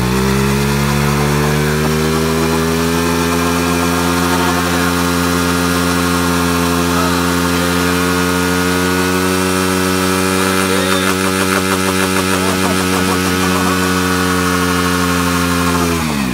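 Small engine of a youth mini quad (ATV) held at full throttle at a steady high pitch while its rear wheels spin in the dirt; the engine drops off right at the end.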